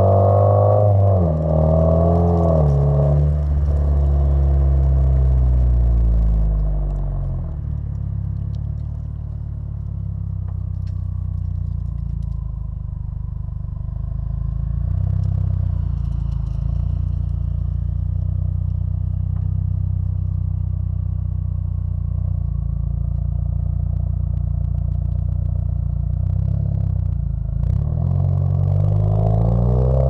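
Exhaust of a 2016 Subaru WRX's turbocharged flat-four, picked up close to the tailpipe while driving. The revs fall in steps over the first few seconds, then settle into a low, steady drone, and climb again near the end as the car accelerates.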